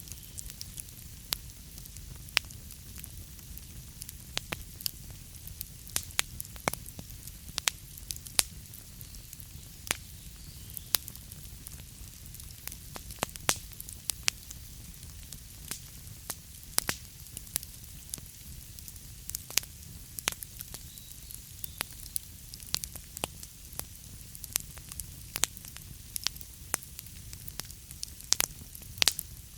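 Wood fire burning in a fireplace: a steady low rumble and hiss of the flames with frequent sharp, irregular crackles and pops from the logs.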